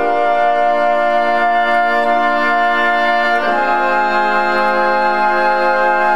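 Background music of slow, held chords, changing to a new chord about halfway through.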